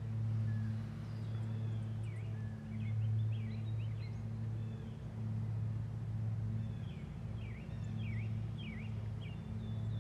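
Low droning background music that swells and fades every second or two, with small songbirds chirping over it in quick downward-sliding notes.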